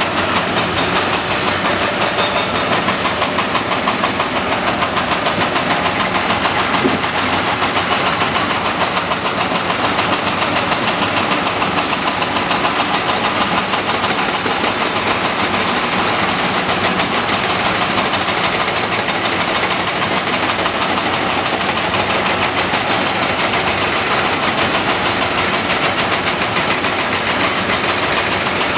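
Cat 330D L excavator's diesel engine running steadily while it works, a loud, even, fast-pulsing engine sound.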